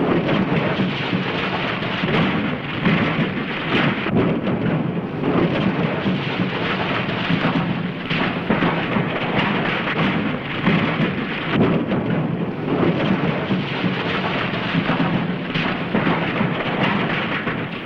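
A car crashing down a rocky hillside: a long, loud, continuous rumble and clatter that keeps up throughout.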